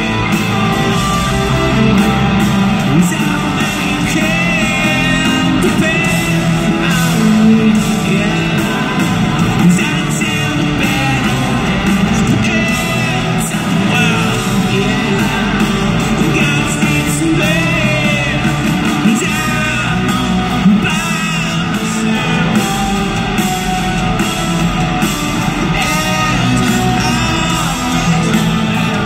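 Rock band playing live in an arena, heard from the stands: guitars, drums and singing, loud and steady, echoing through the big hall.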